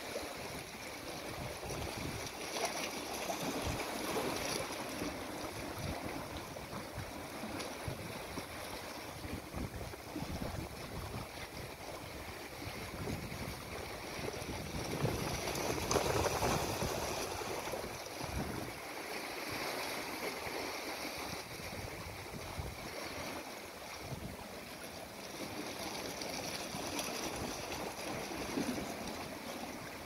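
Small sea waves washing and lapping against shoreline rocks, a steady wash that swells and eases, with a louder surge about halfway through.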